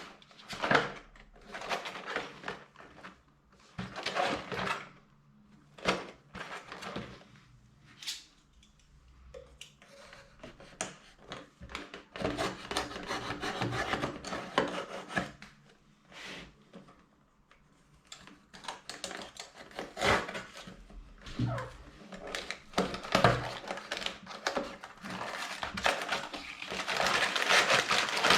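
Hands handling and opening a small LEGO Technic set's cardboard box and packaging: irregular scrapes, taps and clicks, with longer stretches of rustling.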